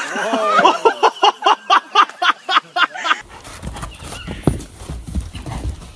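A person laughing hard in quick repeated bursts, about three a second. A little past three seconds in, the laughter cuts off and a horse's hooves thud on a dirt arena as it moves.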